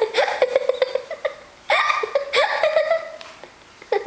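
High-pitched laughter and giggling in rapid bursts, breaking off and dying down near the end.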